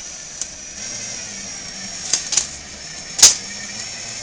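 A few sharp taps and knocks, the loudest about three seconds in, over a faint steady high-pitched whine.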